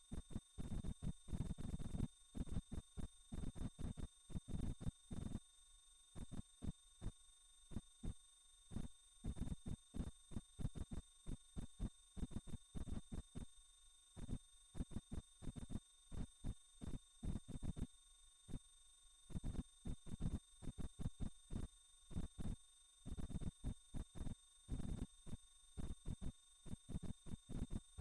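A single steady, very high-pitched pure sine tone, pulsing quickly and evenly in loudness: a sound-healing 'frequency' tone.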